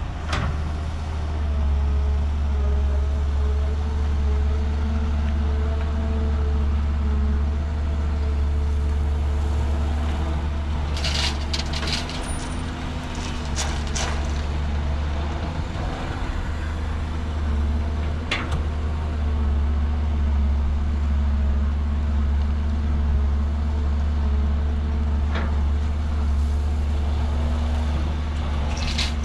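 Heavy-equipment diesel engines running steadily, chiefly a Cat 320GC hydraulic excavator working under load as it digs and swings to load a dump truck, with the engine note shifting slightly. A few sharp clanks and knocks of the bucket and dumped earth, a cluster about 11 to 14 seconds in and single ones later.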